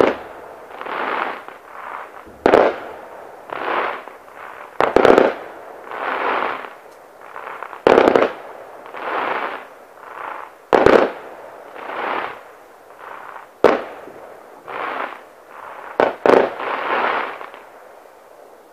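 Fireworks display: aerial shells bursting with sharp bangs every two to three seconds, some in quick pairs, with softer hissing swells between the bangs. The bursts die away near the end.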